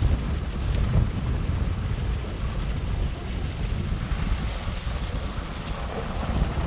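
Wind buffeting the microphone during a downhill ski run, a steady low rumble, with the hiss of skis sliding over packed, tracked snow.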